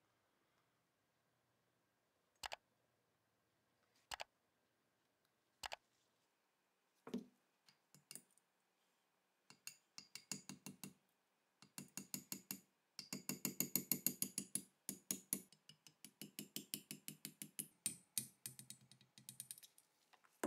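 Small screwdriver tip scraping and picking at rust on the steel frame of a seized Tokarev pistol: three single sharp clicks about a second and a half apart, then a rapid run of scratchy clicks and scrapes, densest about two-thirds of the way in.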